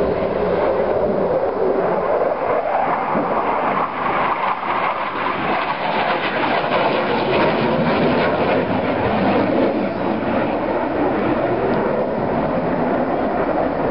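Military jet flying past, its engine noise loud and steady.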